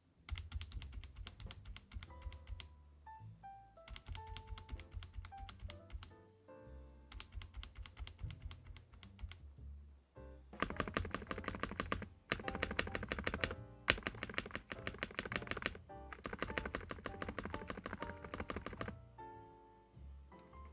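Fast typing on a Dustsilver D95 mechanical keyboard: rapid key clicks in bursts of one to three seconds with short pauses between them, over quiet background music.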